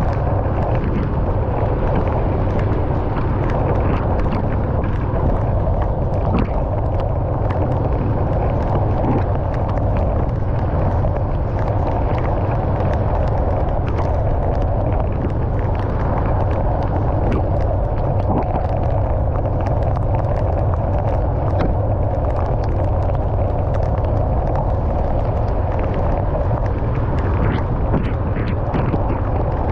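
Steady road noise of a car driving in the rain, tyres hissing on wet pavement, with many small irregular ticks of raindrops striking the car.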